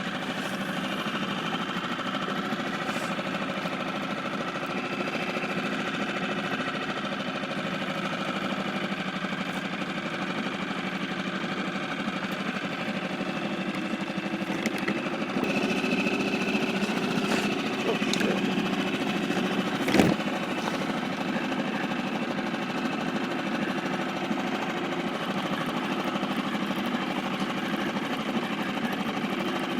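Small Seatan outboard motor running steadily at trolling speed, with one sharp knock about two-thirds of the way through.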